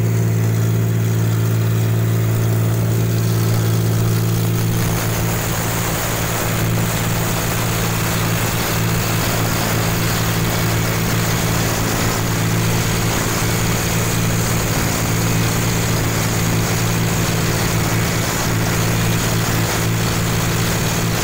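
Rice combine harvester's engine running steadily, heard from on top of the machine as a loud, even hum. About five seconds in a broad rushing noise joins it as the machine works through standing rice.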